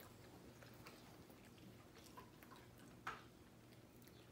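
Near silence: room tone with faint mouth sounds of people chewing marshmallow Peeps, and one short click about three seconds in.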